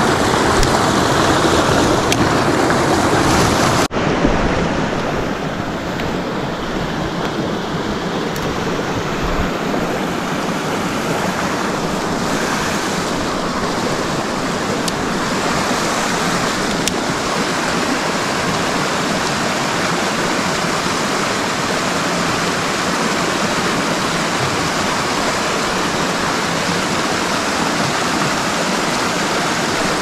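Creek water running steadily, a continuous rushing noise, with a sudden break about four seconds in after which it carries on slightly quieter.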